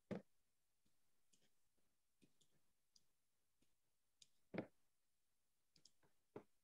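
Faint, irregular clicks at a computer, a dozen or so with near silence between them and the loudest about halfway through: someone trying to start a song's playback, which does not play.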